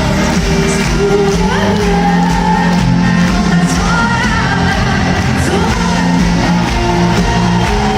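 Live Schlager-pop concert music: a band playing with a sung vocal line, and shouts and whoops from the crowd.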